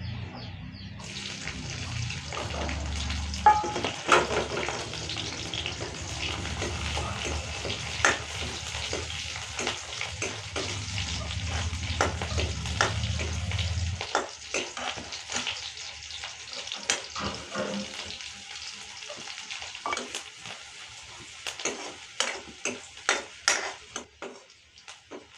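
Chopped green chillies sizzling in hot oil in a metal kadhai, the sizzle starting about a second in as they go into the pan. A metal spoon stirs them, with frequent clicks and scrapes against the pan. A low hum underneath stops about halfway through.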